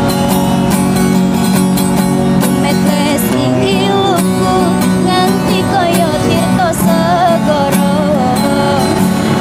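Nylon-string acoustic guitar with a capo playing a song accompaniment, joined about three seconds in by a woman singing the melody with vibrato.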